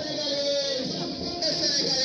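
Music: a song with a melody that rises and falls, sung or played, over a steady accompaniment.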